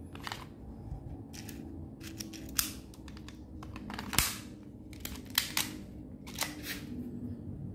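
Spring airsoft Glock 18 replica being handled and cocked: a string of sharp clicks and snaps as the slide is pulled back and let go, the loudest snap about four seconds in.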